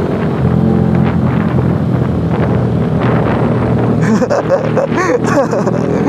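Yamaha R15 V3's 155 cc single-cylinder engine running steadily at cruising speed in fourth gear, with wind noise on the microphone.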